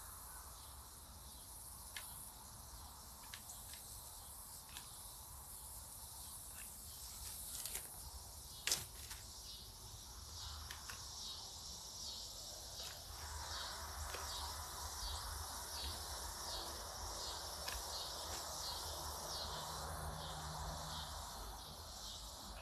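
Insect chorus outdoors, a steady high pulsing buzz, with scattered sharp snaps, the loudest about nine seconds in; a hiss grows louder from about halfway.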